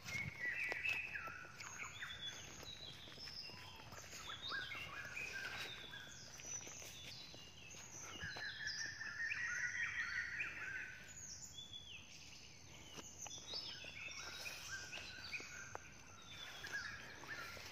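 Birds chirping in chorus: many short, high calls overlapping one another.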